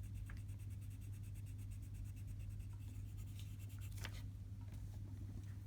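Colored pencil stroking on paper: faint scratching in rapid, even strokes, with one sharper stroke or tap about four seconds in, over a steady low hum.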